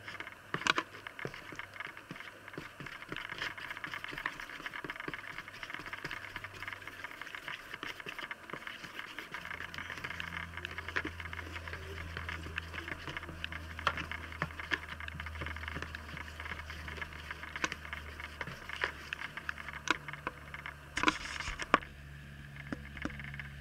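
Wooden stick stirring wet, lumpy glue-and-activator slime in a plastic container: steady squishing and scraping with many small wet clicks, a few sharper knocks near the end. A low steady hum comes in about ten seconds in.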